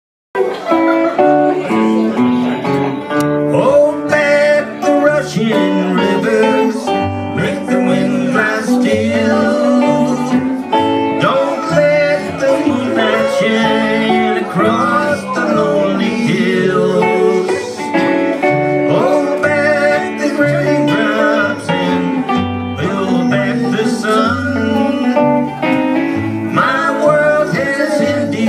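Live trio of archtop electric guitar, acoustic guitar and upright double bass playing a country-blues tune: plucked guitar lines over low bass notes.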